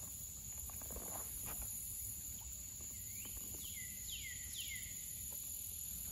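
Steady high-pitched drone of swamp insects, with a bird giving a short run of falling whistled notes about three to four seconds in. A few faint clicks sound in the first second or so.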